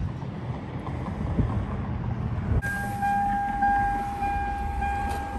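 Low vehicle rumble with wind-like noise. About two and a half seconds in, the sound changes abruptly to a steady high tone with overtones over a continuing low rumble.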